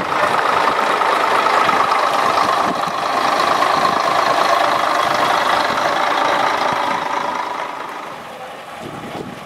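Diesel engine of a modern single-deck coach idling close by, a loud steady running sound that fades down over the last two seconds.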